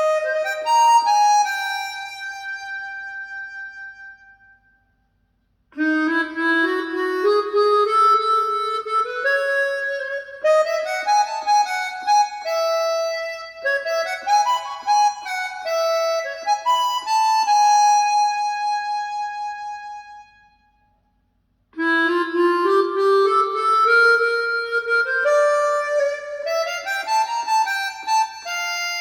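Solo harmonica music played back through a 1995 Mission 761i speaker: phrases of bent notes sliding upward, with no bass underneath, broken by two short pauses about five seconds in and about twenty-one seconds in.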